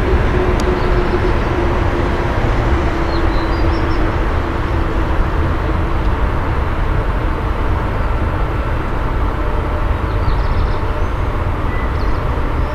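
EP1M AC electric locomotive pulling a passenger train slowly out of the station: a steady low rumble, with a faint hum in the first few seconds.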